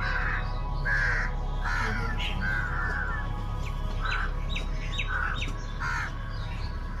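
Birds calling repeatedly, a short harsh call every second or so, with a quick run of short rising chirps about four seconds in, over steady held tones and a low hum.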